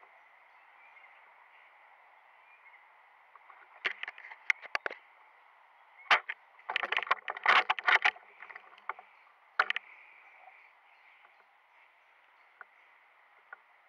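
Irregular sharp clicks and knocks over a steady faint hiss: a few about four seconds in, a dense cluster from about six to eight seconds, and one more near ten seconds.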